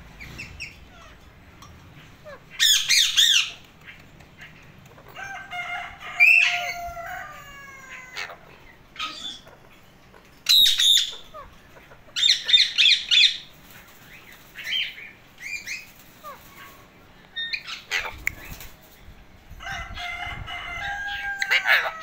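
Alexandrine parakeets calling in repeated loud bursts of harsh squawks and chatter, some with gliding tones, with short quiet gaps between.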